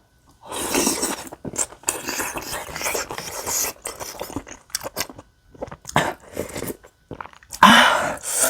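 Close-miked mouth sounds of eating spicy tteokbokki with beef large intestine: chewing and biting in dense noisy bursts, a stretch of a few short clicks midway, and a louder rush of noise near the end.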